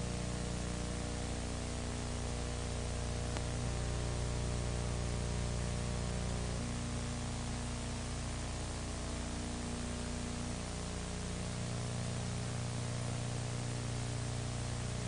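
Steady hiss with a low electrical hum: the background noise of the recording, with no other sound.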